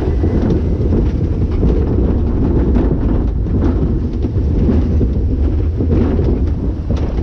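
Loud, steady rush of wind over the microphone of a chest-mounted camera on a moving roller coaster, together with the rumble of the coaster train.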